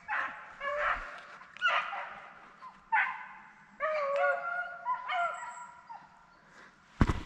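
Beagles baying on a rabbit's track: a run of separate drawn-out bawls and shorter chop calls, with several dogs sounding at once at different pitches. A sharp thump near the end.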